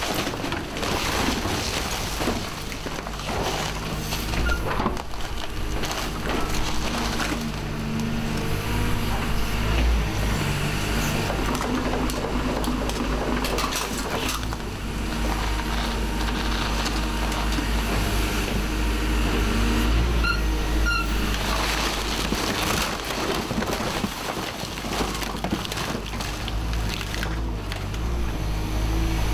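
Hyundai HX180 excavator's diesel engine running under hydraulic load while its Powerhand VRS clamp grips and tears at a car body, with metal crunching and scraping throughout.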